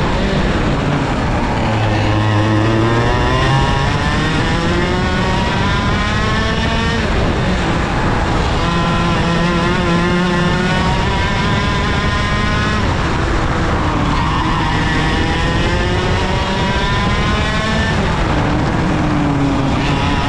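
IAME KA100 100cc two-stroke kart engine at race pace. Its revs climb steadily along each straight and drop sharply off the throttle into the corners, about three times.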